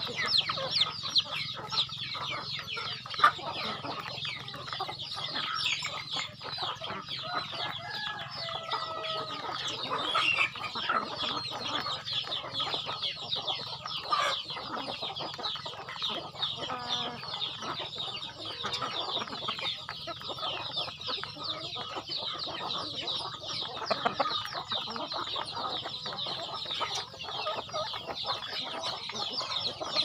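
A flock of chickens pecking grain from a trough, with a rapid, continuous patter of beaks striking the grain and trough and scattered soft clucks.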